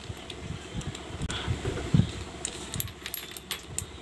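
Metal clinks and rattles of a tubular spark plug socket being worked by hand on a Yamaha Vega R motorcycle's cylinder head, unscrewing the spark plug, with a sharper knock about two seconds in.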